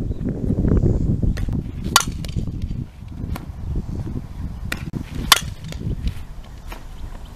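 Two sharp cracks of a softball being struck, about three seconds apart, from infield ground-ball drills, with a few fainter ticks and a low rumble over the first few seconds.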